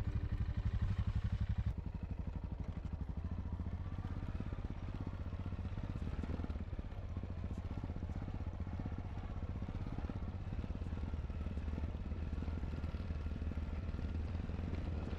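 Yamaha XT660Z Ténéré's single-cylinder engine running steadily, a dense run of low thumping pulses.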